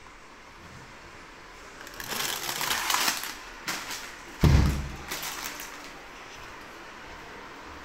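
Plastic food packets rustling as they are rummaged through inside a wooden kitchen cabinet, with a few small clicks, then a single loud thump about four and a half seconds in.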